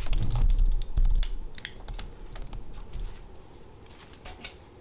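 Irregular clicks and clatter of hand tools working on trailer axle hardware. A low rumble is loud for the first second or so, then the clicks thin out.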